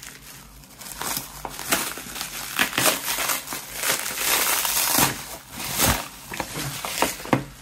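Plastic bubble wrap being unwrapped and crumpled by hand: dense crinkling with many sharp crackles, loudest around five seconds in.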